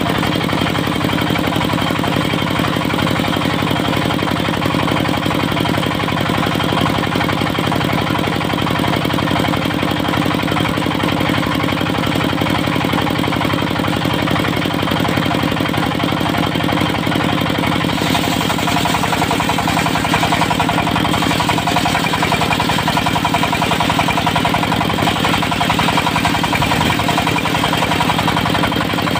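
Dongfeng diesel engine of a portable circular sawmill running steadily with a fast, even throb, and a brighter hiss joining about two-thirds of the way through.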